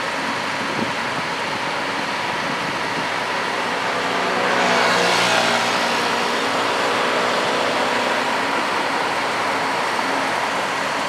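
Steady diesel engine noise from heavy construction machinery running at a piling site, with a louder rushing hiss swelling up about four and a half seconds in and easing off a couple of seconds later.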